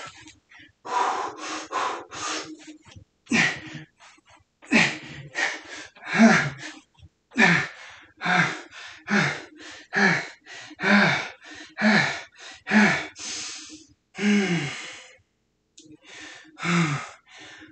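A man breathing hard and gasping in a quick, even rhythm, with a short voiced exhale about every half second to second, from the exertion of a long set of squats. The breaths stop for a moment near the end.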